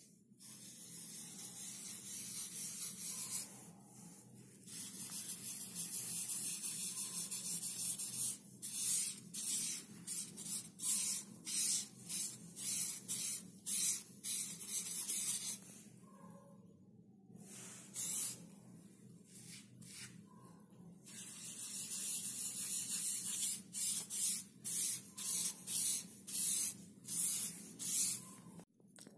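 Dry pastel scratching across sketchbook paper. It starts as long continuous strokes, then turns into runs of quick short strokes, about two a second, with a steady faint hum underneath.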